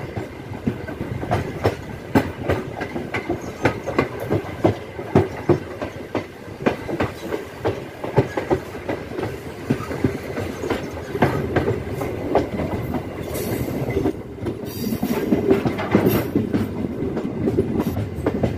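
Wheels of a moving MEMU electric passenger train clattering over the track: many sharp, irregular clacks over a steady rumble, heard from the side of the running coach.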